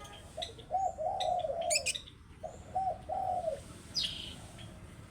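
A dove cooing in a series of low, rounded notes, with a few short high chirps over it, the clearest one falling in pitch about four seconds in.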